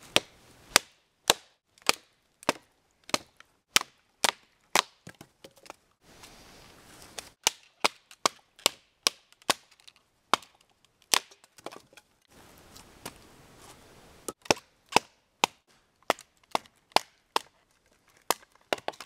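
Sharp wooden knocks, roughly two a second with a couple of short pauses, as a small length of wood is split down into finer pieces by repeated blows.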